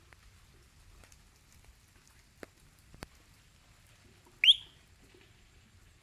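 A small frog giving a single short whistled call about four and a half seconds in, sweeping quickly upward in pitch.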